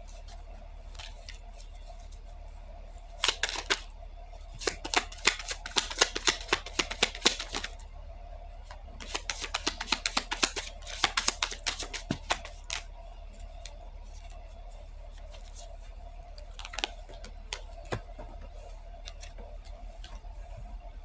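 Two runs of rapid, light clicking and rattling, each a few seconds long, then a few single clicks, over a steady low hum.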